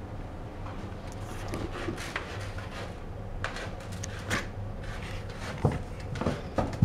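Small cardboard box scraping, rustling and knocking on a carpeted floor, with short irregular scrapes and bumps, as a cat rummages with its head through the box's round hole and then lifts the box with it.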